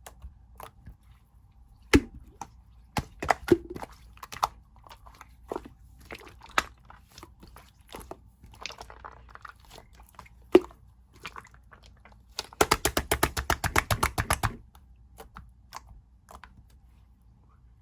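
White milk slime being pressed and squeezed by hand, giving scattered sticky pops and clicks. Past the middle there is a quick rattling run of clicks, about ten a second, lasting roughly two seconds.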